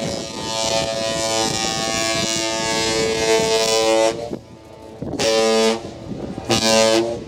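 Great Lakes freighter's ship horn sounding a salute: one long blast of about four seconds, then two short blasts, the long-short-short pattern of the master's salute.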